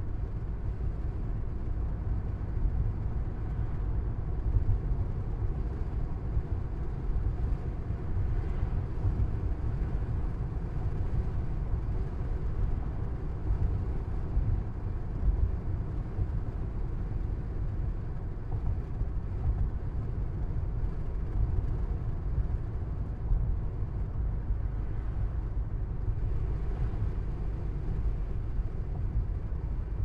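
Car cabin interior while driving on a busy road: a steady low rumble of engine and road noise, with a fainter rushing haze above it.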